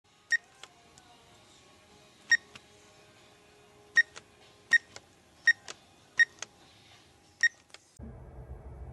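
Alarm system keypad beeping as its buttons are pressed: seven short, high electronic beeps at uneven intervals, each followed by a fainter click. A steady low hum comes in near the end.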